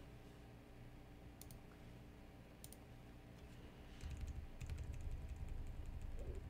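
Faint clicks of a computer keyboard and mouse: two quick double clicks, then a run of light ticks over a low hum that comes up about four seconds in.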